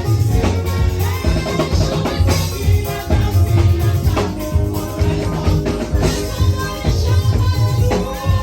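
Upbeat music with a steady drum-kit beat and heavy bass, with voices singing.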